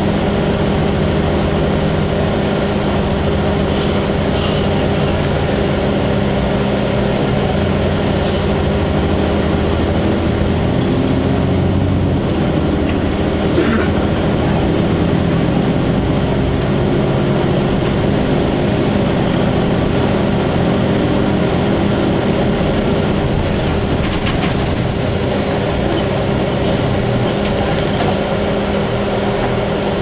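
A 2002 Blue Bird CS transit bus's Cummins ISC straight-six diesel running steadily under way, heard from inside the cabin as a steady engine drone over road noise. A few short clicks from the body sound now and then.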